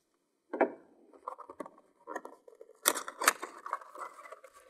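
Handling noise: clicks, knocks and rustling as a small box and hard plastic drone parts are picked up and moved in a foam-lined case. There is one knock about half a second in, a louder pair of clicks near three seconds, and rustling and scraping to the end.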